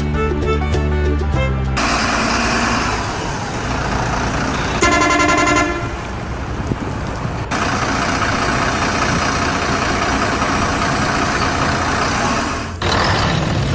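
Truck engine and road noise, with one horn blast lasting under a second about five seconds in. Music plays briefly at the start.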